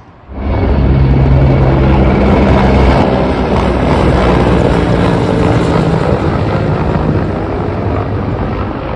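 Helicopter flying overhead: the steady beat of its rotor over engine noise. It comes in suddenly and fades a little near the end.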